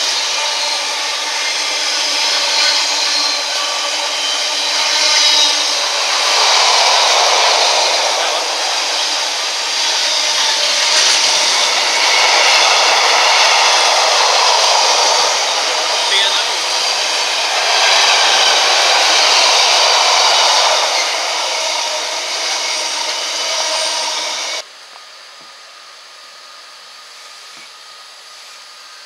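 Container freight train's wagons passing close at speed: a loud, steady rush and rattle of wheels on rail that swells and eases in slow waves. It cuts off abruptly about four seconds before the end, leaving a much quieter steady hum.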